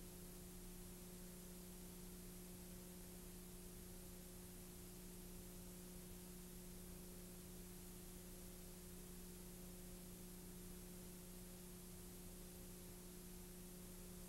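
Near silence: a steady hiss with a low, even hum and no other events.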